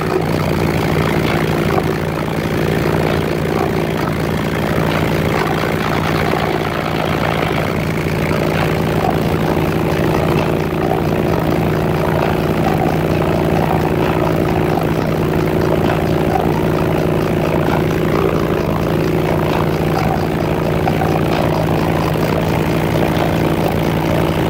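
An engine idling steadily with a constant low hum.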